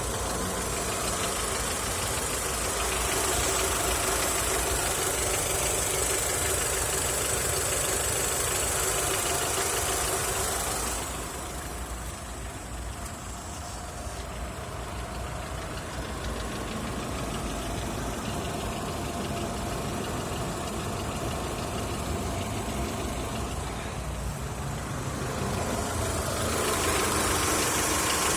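Mitsubishi 4G63 inline-four running steadily at idle once warm, with a knock from the engine. The sound turns duller and quieter about a third of the way in and returns to full near the end.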